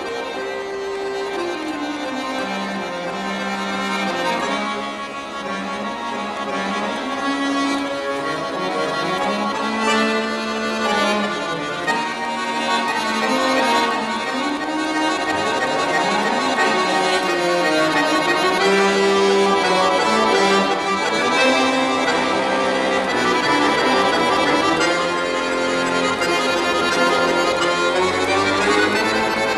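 Solo accordion playing continuously, with a moving bass line under many notes at once, growing gradually louder through the first half.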